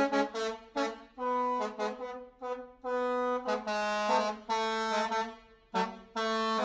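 Multi-tone 'telolet' bus horn being tested, playing a tune: a few quick short toots, then longer held notes at changing pitches, with a short break near the end.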